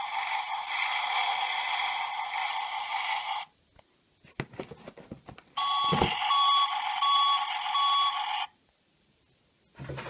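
Electronic sound effects from the small speaker of a Tonka Toughest Minis toy tractor, set off by its push buttons. A thin, noisy clip with no bass cuts off about three and a half seconds in. After light plastic handling noise and a button click, a second clip plays four evenly spaced beeps over the noise and stops about three seconds later.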